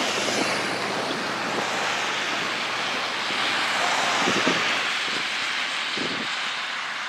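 Steady rushing hiss of wind blowing across the microphone, with faint distant voices from the field now and then.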